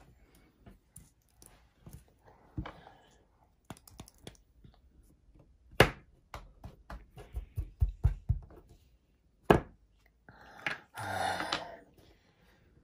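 Scattered knocks and taps of a plastic sand mould and hands on a tabletop while kinetic sand is pressed and shaped, with a quick run of taps in the middle and the loudest knocks about six and nine and a half seconds in. A short rustling scrape comes near the end.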